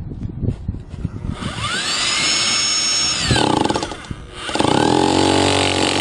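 Bosch hammer drill with a 2-inch diamond core bit starting into a face brick. Its motor winds up about a second and a half in, runs steadily, winds down, then starts again and runs until it cuts off near the end.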